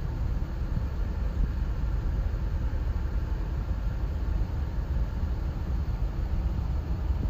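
A vehicle driving along a winding road, heard from inside the cabin: a steady low rumble of tyres and engine.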